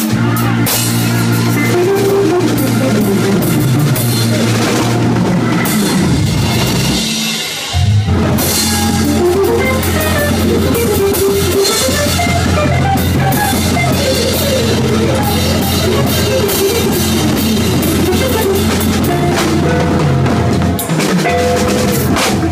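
Live rock jam: a drum kit with crashing cymbals and a guitar playing a wandering lead line over steady low bass notes. About seven seconds in, the band briefly drops out and comes back in together on a hit.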